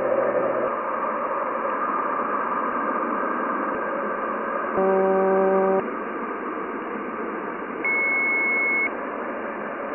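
Jupiter's radio emissions turned into sound: a steady, radio-static-like hiss with a swirling texture. About five seconds in, a one-second buzzy low tone cuts in; about eight seconds in, a one-second high, pure beep sounds.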